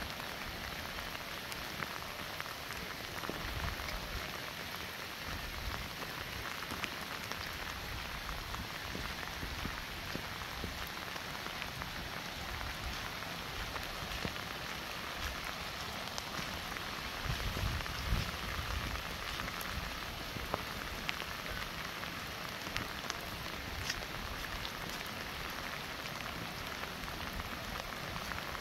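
Steady rain falling, an even hiss dotted with small drop ticks. A brief low rumble rises and fades about two thirds of the way through.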